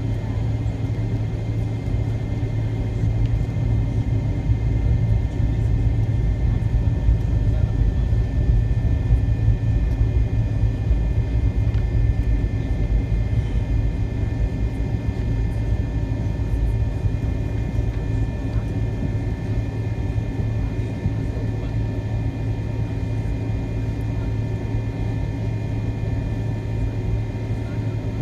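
Cabin noise inside a McDonnell Douglas MD-88 taxiing: a steady low rumble and hum with a thin, steady whine from its tail-mounted Pratt & Whitney JT8D turbofans running at idle.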